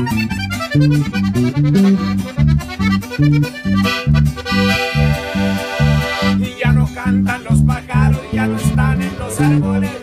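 Sierreño trio playing an instrumental passage: a button accordion leads, with a long held chord about halfway through, over a 12-string acoustic guitar and an electric bass keeping a steady pulse.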